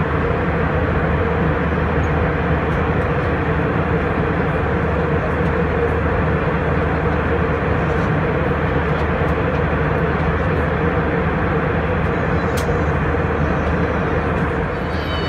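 Steady cabin noise of an Airbus A321 airliner in flight: an even, unbroken rush of jet engine and airflow noise with a constant hum beneath it.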